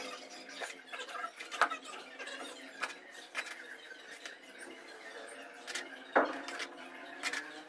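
Steel trowel scooping wet cement mortar out of a plastic bucket and spreading it onto a cement form: a handful of short, sharp scrapes and taps, the loudest about a second and a half in and again about six seconds in.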